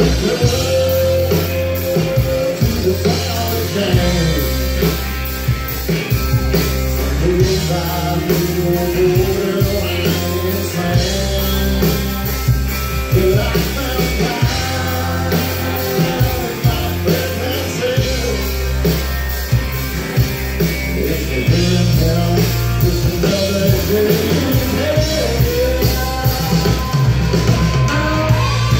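Live country band playing an instrumental break: a bending lead melody over steady bass and drums.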